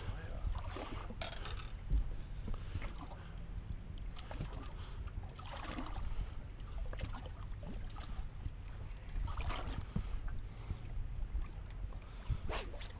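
Small fishing boat sitting on choppy lake water: a steady low rumble with water slapping and lapping, and scattered light clicks and knocks.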